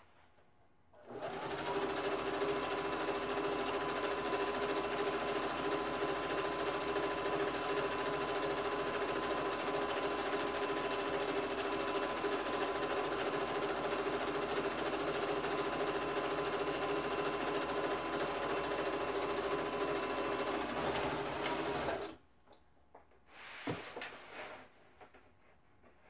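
Electric household sewing machine running steadily at speed, stitching a long seam through layered fabric. It starts about a second in and stops about 22 seconds in. A sharp click and a brief rustle follow about two seconds later.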